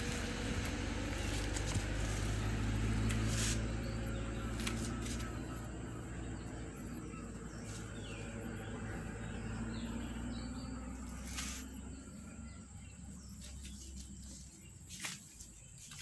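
Steady low mechanical hum that fades away near the end, with a few faint clicks.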